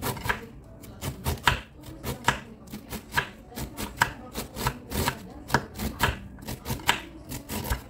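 Kitchen knife shredding a cabbage on a wooden cutting board: a steady run of slicing strokes through the leaves, each ending on the board, about two to three a second.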